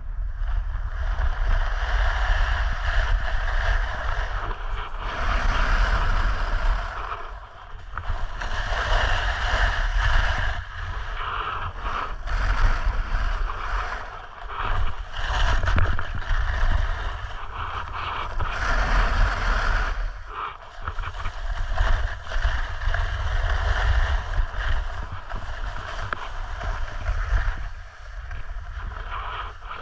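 Snowboard riding down a groomed slope: the board's edge scraping and hissing over firm snow, swelling and easing every few seconds with the turns, over a heavy rumble of wind on the microphone.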